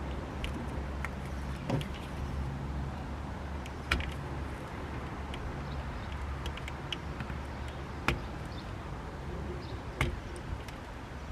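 Hand work on boat wiring: four sharp clicks and knocks from tools and connectors being handled, the loudest about four seconds in, over a steady low hum.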